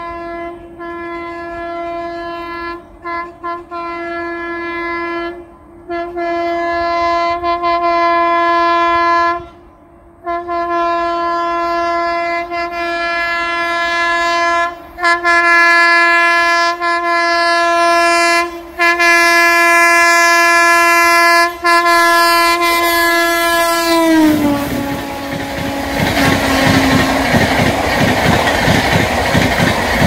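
Indian Railways Janshatabdi express train's electric locomotive horn, sounding long steady blasts broken by many short gaps as the train approaches on a curve. The horn's pitch drops sharply as the locomotive passes, about 24 seconds in. After that comes the loud rumble and clickety-clack of the coaches rushing past.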